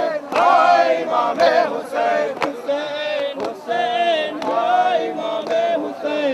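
A lead male voice chants a mourning lament (nauha) through a microphone, with a group of men singing along. Sharp hand strikes on chests (matam) land in time with it, about once a second.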